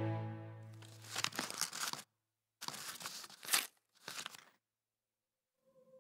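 Paper crinkling and crumpling in three short bursts, the third the briefest, as background music fades out at the start.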